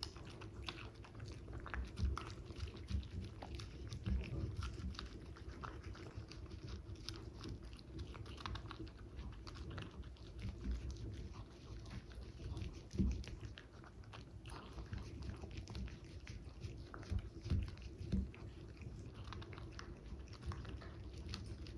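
A toy poodle biting and chewing a dog cake out of a clear plastic cup: a run of small, irregular mouth noises, with a few louder bites about 2, 13 and 18 seconds in.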